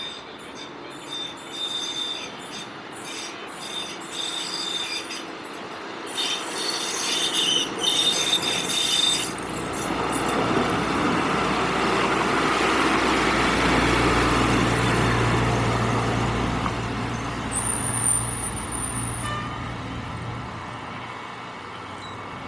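Hi-rail rail inspection truck running on the rails towards and past the listener: high-pitched wheel squeal and clicks at first, then the truck's engine hum and steel wheels on rail rising to a loud rumble as it goes by, with a short very high squeal a few seconds before it fades away.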